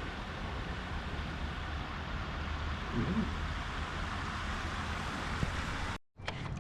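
Steady wind noise rushing over the microphone out on open water, with a faint voice briefly about three seconds in.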